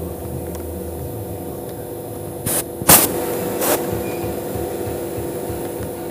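CNC router spindle running with a steady hum while its conical V-bit mills a Greek key groove along the edge of a board. A little under halfway through come three short, loud bursts of noise, the middle one the loudest.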